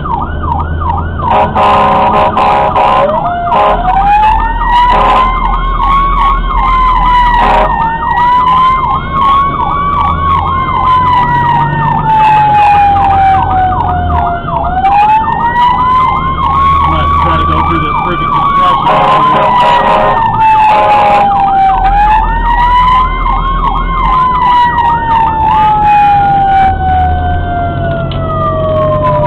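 Fire engine sirens from the responding truck: a slow wail rising and falling several times over a fast yelping warble, which stops near the end as the wail winds down. A horn sounds twice, near the start and about two-thirds through, over a low engine rumble.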